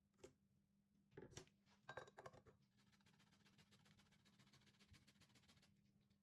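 Very quiet kitchen handling sounds: a light knock, a short clatter of utensils about a second in, then faint rapid ticking that stops near the end, over a faint steady hum.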